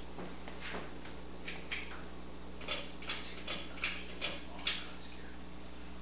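Ceiling fan pull-chain switches being pulled: a run of about six sharp clicks over roughly two seconds as the Harbor Breeze Coastal Creek fan's light and motor are switched off. A steady low hum runs underneath.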